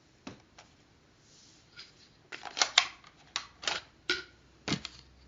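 Plastic View-Master viewer and reel being handled, with a couple of light clicks and then a quick run of sharp plastic clicks and snaps as the next reel is fitted and the viewer is worked.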